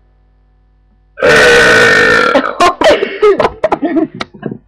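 A young woman's long, loud "big man burp" starting about a second in and lasting about a second, followed by a string of shorter broken vocal sounds.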